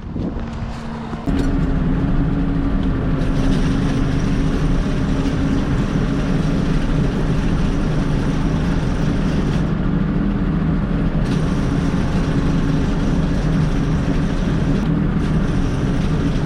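Tractor engine running steadily. About a second in it steps up to a louder, higher engine speed, which then holds steady.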